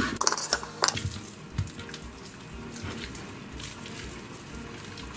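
Kitchen knife cutting through raw pork shoulder on a wooden cutting board, with a few sharp clicks in the first second, then wet squelching of the raw meat being handled.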